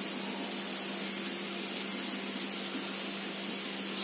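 Noodles and vegetables frying in a hot pan: a low, steady sizzling hiss with a faint steady hum, and a brief click near the end.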